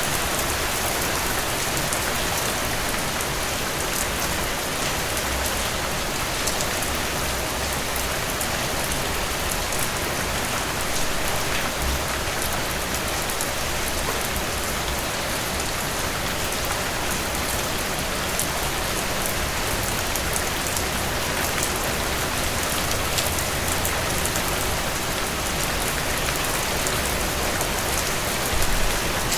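Heavy rain pouring steadily onto a surface, a dense even hiss with individual drops spattering through it and a faint low rumble underneath.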